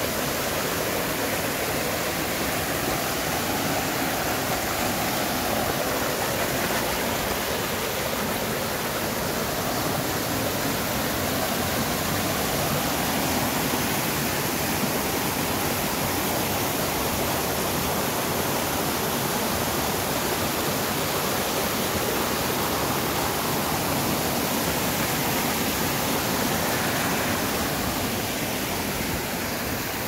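Mountain stream rushing and splashing over granite boulders in small cascades, a steady, unbroken rush of water that eases slightly near the end.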